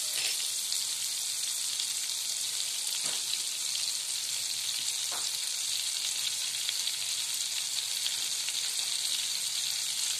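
A spoonful of butter melting in hot oil in a pan, sizzling steadily with a high hiss and a few faint pops.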